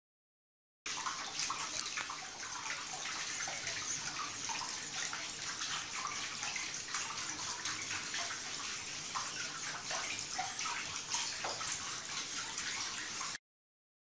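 Water-running robot's legs slapping across the water surface, a dense, continuous spatter of small splashes. It starts suddenly about a second in and cuts off suddenly near the end.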